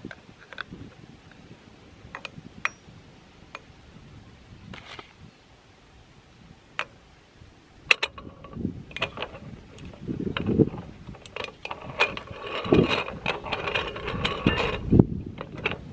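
Aluminium moka pot being filled and assembled: a metal spoon clinks now and then against the pot as ground coffee is spooned into the filter basket. From about eight seconds in, the top chamber is screwed onto the base with a dense run of scraping metal clicks.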